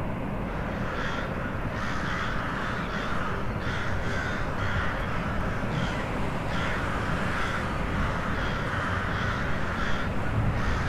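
Birds calling in a rapid repeated series, about two harsh calls a second, over a steady low rumble.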